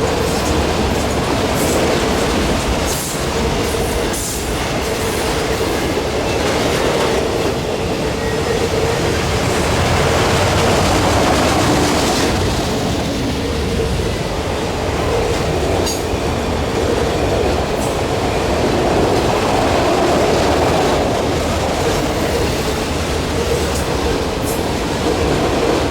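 Freight train cars rolling past at steady speed, the wheels clicking over rail joints now and then, under a continuous rumble with a faint steady tone.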